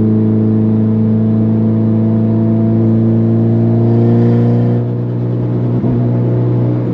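Mitsubishi Lancer Evolution X's turbocharged 2.0-litre four-cylinder, fitted with an open dump pipe and titanium exhaust, droning steadily at highway cruise, heard from inside the cabin. About two-thirds through there is a brief rush of hiss, and then the engine note eases and drops a little in level.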